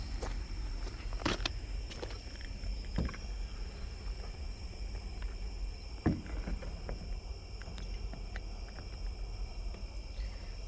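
Night insects trilling steadily at a high pitch over a low, steady rumble, with a few sharp clicks or knocks.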